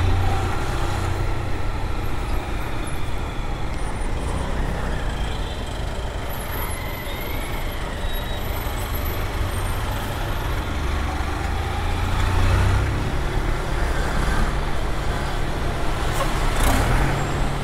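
Honda Fan 160's single-cylinder four-stroke engine running while the motorcycle rides at road speed, with wind rushing over the microphone. The low engine hum swells near the start and again about two-thirds of the way through.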